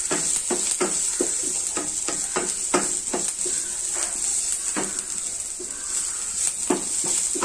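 Chopped onions, green chillies and curry leaves sizzling in oil in a stainless steel pan while a wooden spatula stirs them, with repeated scraping strokes against the pan, about two a second at first and sparser later. The onions are being sautéed until they turn translucent.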